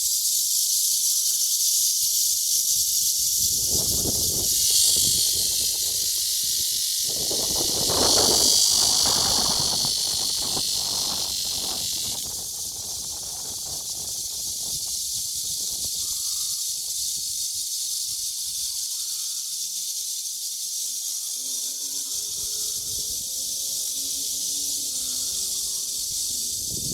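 Chorus of cicadas buzzing steadily and shrilly, louder through the first half and easing off after about twelve seconds in. A low rumble runs underneath for several seconds in the first half.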